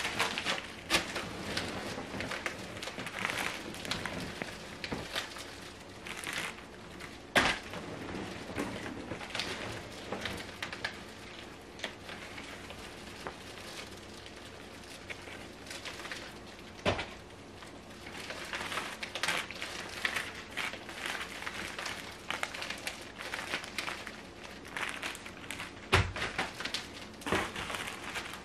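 Plastic packaging and bags crinkling and rustling as items are handled in a cardboard box, with a few sharp knocks now and then.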